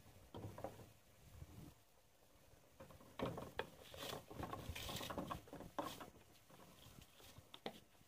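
Soaked rice tipped from a glass bowl into a steel pot of hot water, pushed out with a wooden spoon: faint pattering with light knocks of the spoon, after a little stirring in the pot at the start.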